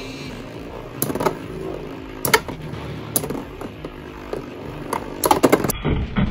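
Two metal Beyblade spinning tops, Rock Leone 145WB and Lightning L-Drago 100HF, whirring steadily as they spin in a plastic stadium, with sharp metallic clacks as they strike each other: single hits about a second in, at two seconds and at three seconds, then a quick run of clashes near the end.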